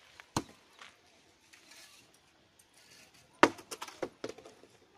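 Hard knocks and clacks of bricks being handled in bricklaying: one sharp knock under half a second in, then a loud quick run of clacks about three and a half seconds in.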